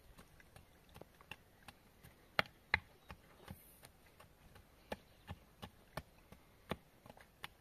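Irregular series of short, sharp knocks, somewhat under two a second, with the two loudest close together about two and a half seconds in.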